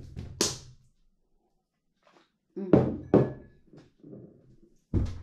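A plastic water bottle and a drinking glass set down and shifted on a table: four knocks and thuds, two of them close together about halfway through.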